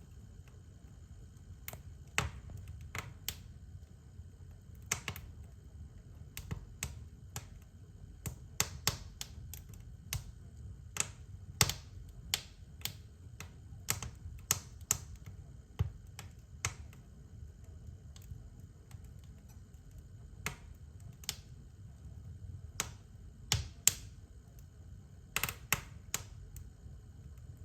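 Fire crackling: irregular sharp pops and snaps, one to three a second and some much louder than others, over a steady low rumble.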